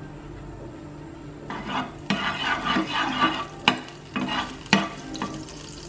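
Melted margarine sizzling in a hot non-stick frying pan as a spatula spreads it round, starting about a second and a half in, with scraping and a couple of sharp taps of the spatula against the pan.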